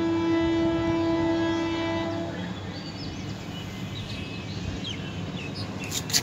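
A horn sounding one long, steady note for about two and a half seconds, then stopping. A sharp click follows near the end.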